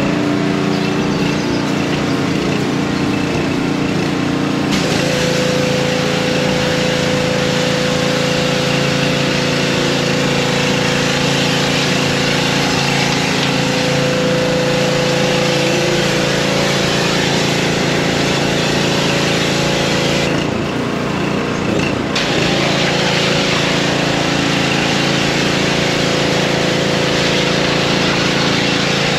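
Pressure washer's small engine running steadily under a loud spray hiss from the wand; the spray cuts out for about two seconds about two-thirds of the way through, then starts again.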